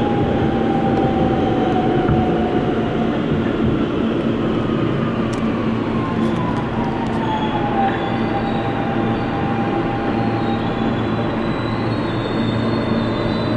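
R160B Siemens subway car running into a station, heard from inside the car: steady wheel-and-rail rumble with the propulsion motors' whine gliding down in pitch as the train slows, then levelling off about two-thirds of the way in. A few faint high squeals and clicks come near the end.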